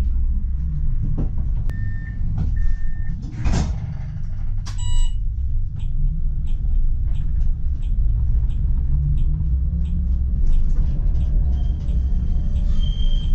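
PESA Swing 122NbT tram heard from the driver's cab: a steady low rumble, with a run of regular clicks about every half second through the middle and a few short electronic beeps.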